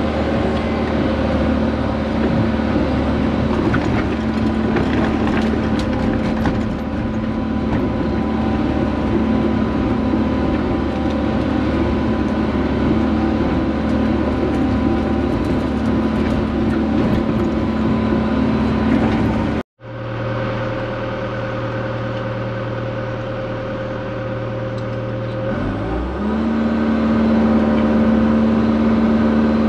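Hyundai excavator's diesel engine running steadily as the machine tracks up a hill, heard from inside the cab. The sound cuts out abruptly for a moment about twenty seconds in, then comes back as a lower hum, and the steadier higher engine tone returns a few seconds later.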